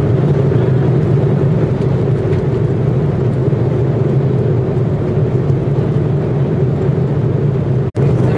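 Steady cabin noise of an airliner in flight, a constant low drone with no changes. The sound cuts out for an instant near the end.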